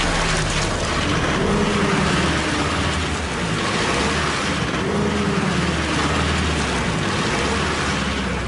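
Pickup truck engine revving up and falling back, about twice, over a steady hiss as its driven wheels spin on a slippery skid pan. The wheelspin shows a lack of traction: the vehicle is too light over its driven wheels to grip.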